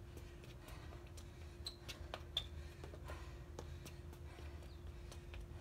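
Faint, uneven taps and scuffs of athletic shoes landing on a concrete patio as a person jumps back and forth in a footwork drill.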